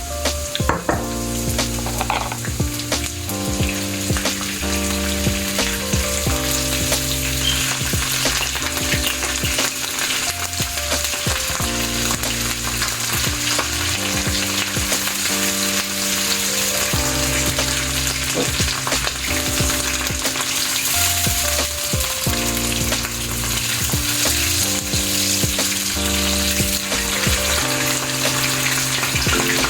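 French toast sizzling steadily as it fries in a pan, over soft background music of slowly changing chords.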